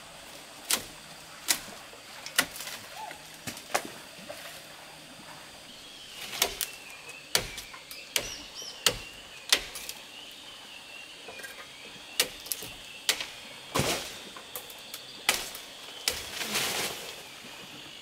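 Irregular sharp cracks and knocks, about one or two a second, from tree branches being cut and snapped by hand, with a longer rustle of leafy branches near the end.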